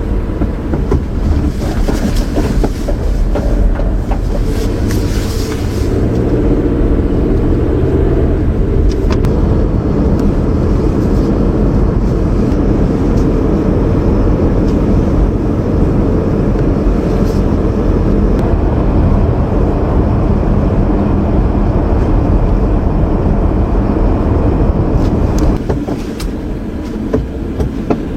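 A loud, steady low rumbling noise with scattered faint clicks, easing off a little near the end.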